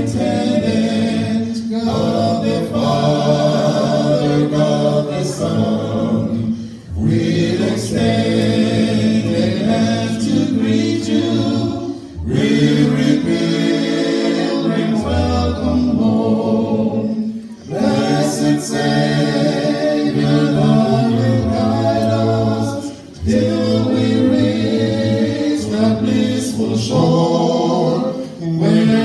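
Male vocal quartet singing a cappella in harmony into handheld microphones. The phrases break off briefly about every five seconds, and a deep bass note stands out near the middle.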